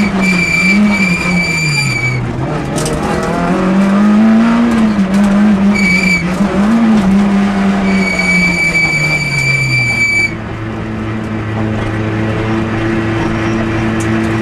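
Citroën Saxo rally car's engine heard from inside the cabin, revs rising and falling through the bends, with a high steady squeal from the tyres at times. About ten seconds in the engine note drops and the car runs on at low, steady revs, easing off.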